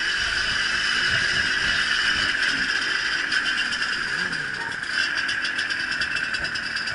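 Off-road trail motorcycle engine running at low speed through deep mud, its pitch rising and falling with the throttle, heard from a bike-mounted camera with a steady mechanical whine and rattle. A quick clattering joins in from about five seconds in.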